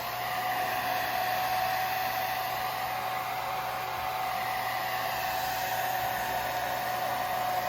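Handheld blow dryer running steadily, an even rush of air with a steady whine, blowing over a head tie to dry freeze spray on a wig's lace.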